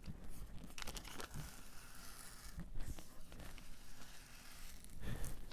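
Adhesive vinyl stencil and transfer tape being peeled back by hand, a soft crinkling and crackling of the plastic film with a few small clicks.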